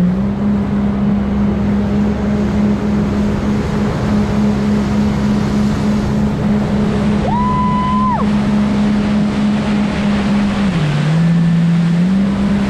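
Jet ski engine running steadily at speed over the hiss of spray and water rushing past. Its pitch drops for about a second near the end as the throttle eases, then climbs back. A brief high held tone sounds about seven seconds in.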